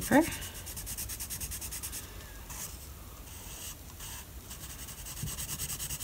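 4B graphite pencil shading on sketchbook paper with the side of the lead: rapid, even back-and-forth strokes rasping on the paper. The strokes ease off midway and pick up again near the end.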